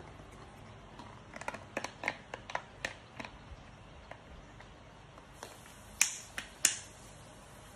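Light clicks and taps of small parts being handled during a blender repair: a quick irregular run of them, then two sharper, louder clicks near the end.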